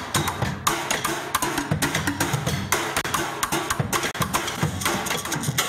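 Fast, dense hand-played percussion: many sharp strikes in a quick, driving rhythm, drumming on drums and found objects.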